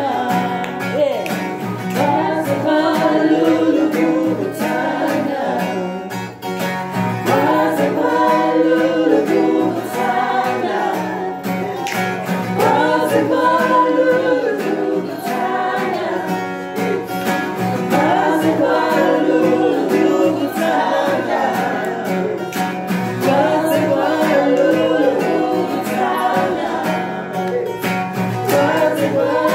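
An acoustic guitar played as accompaniment to two men singing together in a gospel-like style, in phrases of a few seconds each.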